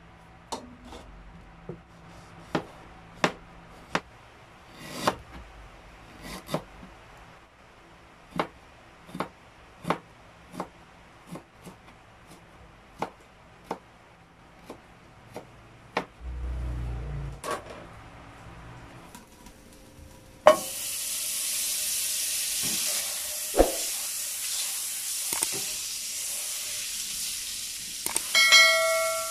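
A kitchen knife chopping ginger on a plastic cutting board: single sharp knocks about a second apart. About twenty seconds in, this gives way to butter sizzling in a wok, a steady hiss with a wooden spatula stirring. Near the end a ringing bell chime sounds.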